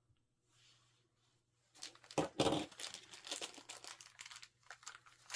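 Beyblade X toy packaging crinkling as it is handled and opened, starting about two seconds in and loudest just after it starts.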